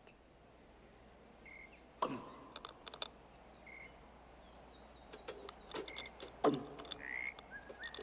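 Faint night-forest sound effects: short high chirps now and then, a few sharp clicks, and two falling swoops about two seconds and six and a half seconds in.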